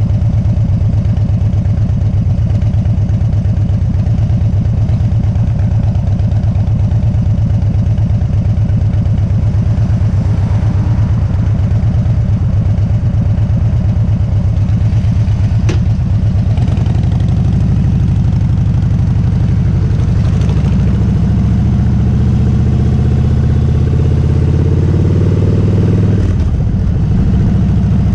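Harley-Davidson Dyna Street Bob (FXDB) motorcycle engine idling with an even low pulse, then a sharp click about halfway through as it goes into gear. It then pulls away, the engine note rising as it accelerates, and drops briefly near the end at a gear change.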